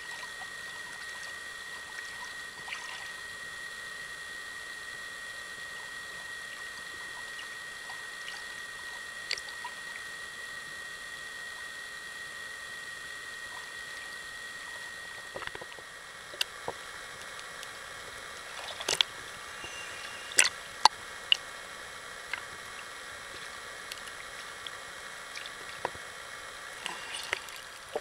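Underwater sound: a steady hiss with a thin high tone that fades out about halfway. After that come scattered sharp clicks and taps, a few of them much louder.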